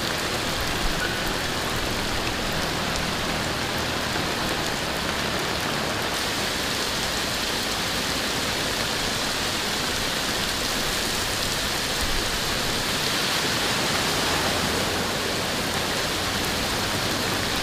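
Heavy rain falling steadily on a flooded street, with a slightly louder stretch about two-thirds of the way through.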